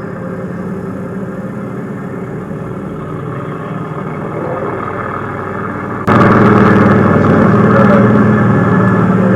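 Tank engine running steadily. About six seconds in it suddenly gets much louder as the tank sets off.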